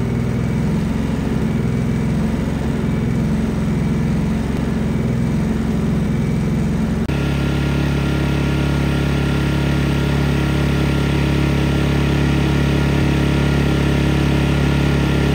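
Two petrol engine generators running in turn. First comes the RK4000iE inverter generator, reading about 68 dB on a sound meter. About seven seconds in it switches to an EX Power engine generator, which runs with a steadier, stronger hum and reads about 78 dB.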